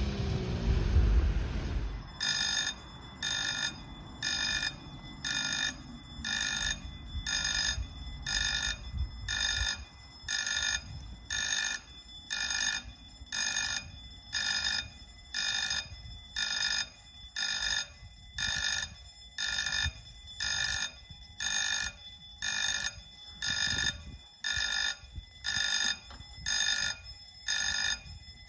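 Railway level crossing warning bell sounding, regular electronic dings about once a second with sharp starts and stops, beginning about two seconds in. Before it, a car passing over the crossing.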